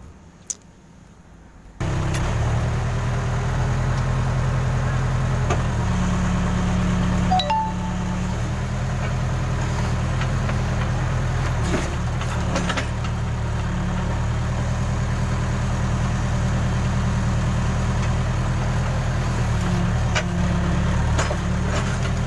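Case backhoe loader's diesel engine, cold after standing several days, comes in suddenly about two seconds in and then runs steadily at idle, with a few faint clinks over it.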